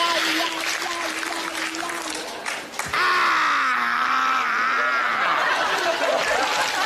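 A man's long drawn-out shout, falling in pitch, starting about three seconds in over audience noise. Before it a steady held whine stops about two seconds in, followed by a short click.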